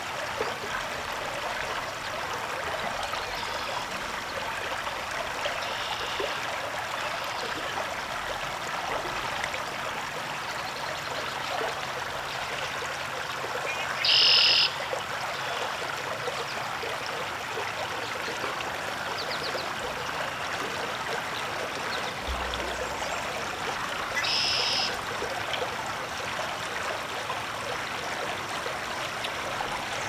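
Outdoor pond ambience: a steady hiss, with two short, high buzzes about ten seconds apart, the first the louder, and a brief low rumble between them.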